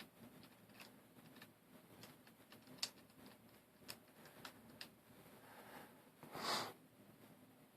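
Faint clicks and taps of plastic puzzle pieces being handled and fitted into a partly rebuilt V-Cube 7 (7x7 cube): a handful of sharp, widely spaced ticks, then a brief soft rush of noise about six and a half seconds in.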